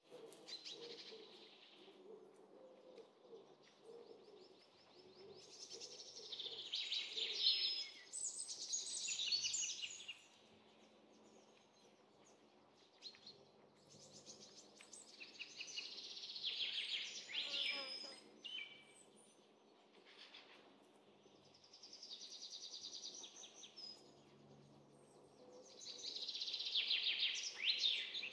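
Several songbirds singing: bursts of fast trills and chirps that come and go every few seconds, with quieter gaps between them.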